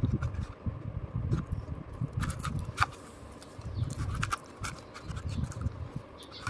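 Handling noise from a stiff paper cutout and foil-wrapped chocolates: irregular low thumps and knocks, with scattered sharp crinkles and clicks from the wrappers.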